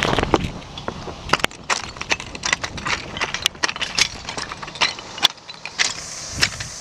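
Footsteps on a slope of loose, flat stone slabs, with irregular sharp clinks and crunches as the stones shift and knock together underfoot.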